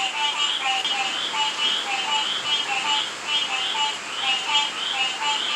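Chorus of frogs and toads calling in the rain: short calls repeated about three times a second, overlapping from several animals, over a steady hiss of rainfall.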